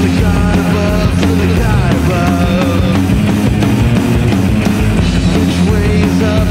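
Loud, heavily distorted punk-style rock: overdriven electric guitars over a four-string Rickenbacker bass and drums, with a wavering, bending high line on top.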